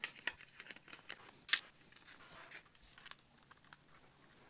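Light scattered clicks and taps of a 3D-printed plastic casing and small screws being handled and fitted together, with one sharper click about one and a half seconds in.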